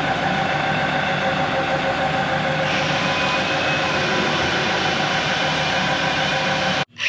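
Heavy machinery running steadily: an engine-like drone with a steady whine over it, cut off abruptly near the end.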